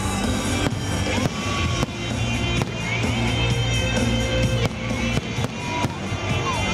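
Aerial fireworks shells bursting in a salute, a string of sharp bangs, heard together with loud music that carries through the whole stretch.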